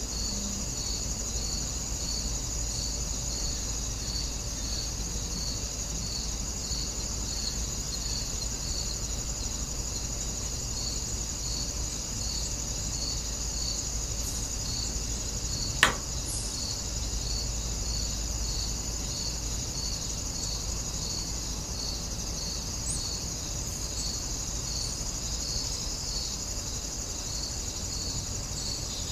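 Steady chorus of insects, crickets or similar, with a continuous high trill and a regular pulsing chirp, over a low even rumble. A single sharp click comes a little past halfway.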